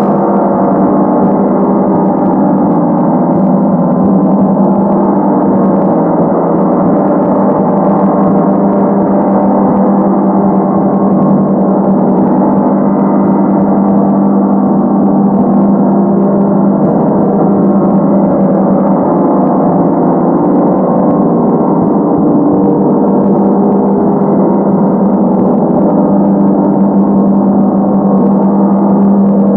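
A 100 cm Feng gong played continuously with two soft-headed mallets, holding a steady, loud, dense wash of many ringing tones over a strong low tone.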